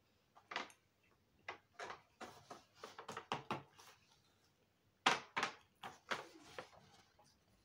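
A cardboard cake box being picked up and handled: a run of irregular light knocks and scrapes, with a short pause about halfway through.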